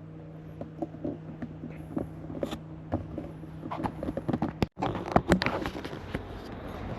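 Scattered sharp clicks, taps and knocks over a low steady background, coming faster and louder in the second half.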